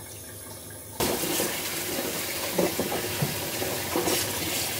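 Kitchen tap running water into a stainless-steel sink while washing up, starting abruptly about a second in as a steady hiss, with a few brief knocks.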